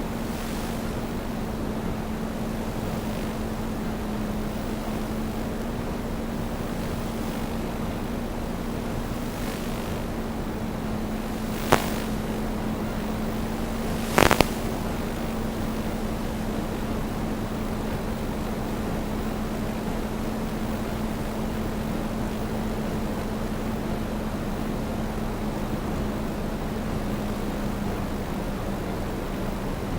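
DJI Phantom 2 quadcopter's motors and propellers running in flight: a steady drone with one held hum and a rushing noise. Two sharp clicks cut in, about twelve and fourteen seconds in.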